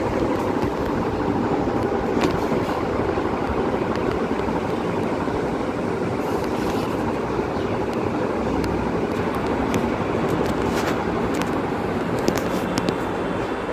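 Vision Super electric fan running with a steady motor hum over the rush of its blades, with a few faint ticks.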